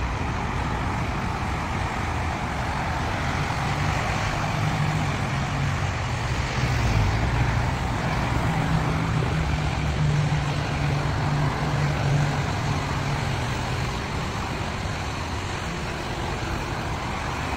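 Steady motor-vehicle noise: a low engine hum under an even rush of road noise, holding level throughout.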